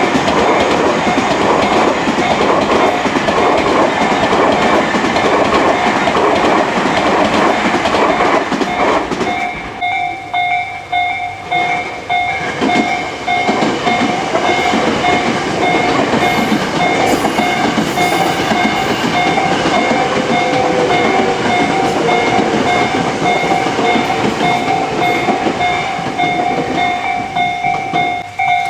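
Tobu Railway trains running over a level crossing, wheels clattering on the rails, while the Japanese crossing warning bell rings its pulsing "kan-kan" alarm. The bell stands out clearly once the first train's noise drops, about nine seconds in, and another train rumbles by under it.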